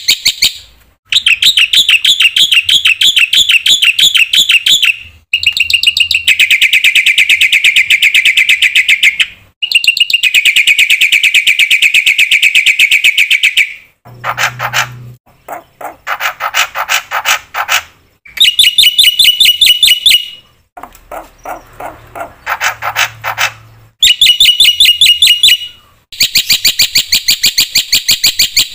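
Black-winged myna (jalak putih) singing loudly: long runs of rapid, repeated high trilling notes lasting several seconds each, broken by short pauses. About halfway through comes a stretch of lower, more varied chattering calls.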